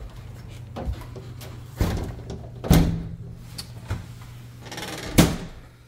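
A panelled door being opened and pushed shut: a series of sharp knocks and clunks, the loudest two near the middle and near the end, over a steady low hum.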